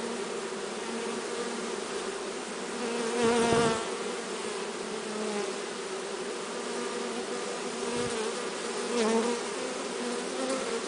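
Honeybee swarm buzzing in a steady drone, with a louder, nearer buzz swelling up about three and a half seconds in and again near the end.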